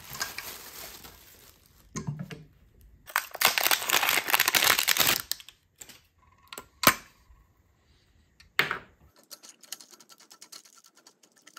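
Clear plastic packaging crinkling and tearing as a gas regulator is unwrapped, loudest about three to five seconds in. A single sharp click comes about seven seconds in, followed by faint light ticks near the end.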